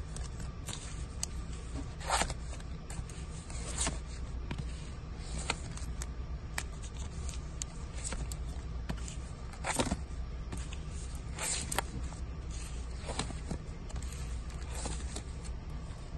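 Vinyl LP records in clear plastic sleeves being flipped through one by one: sleeves sliding, scraping and slapping against each other every second or two, over a steady low hum.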